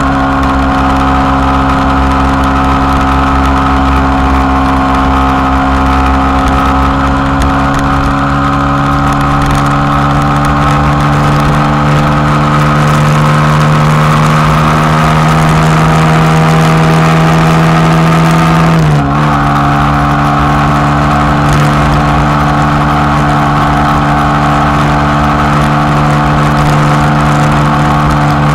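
Motorcycle engine running at highway cruising speed, its pitch climbing slowly, then dipping suddenly about two-thirds of the way through before running steady again, over a low wind rumble.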